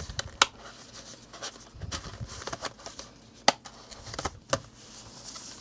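Hands folding and tucking shut a thin cardboard kit folder: soft paper rustling with a few sharp taps and clicks, the loudest about half a second in and around three and a half seconds in.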